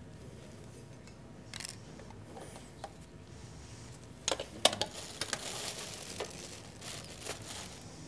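Glasses and tableware clinking and knocking at a tasting table, with a cluster of sharp clinks about four and a half seconds in, followed by a few seconds of soft hissing noise.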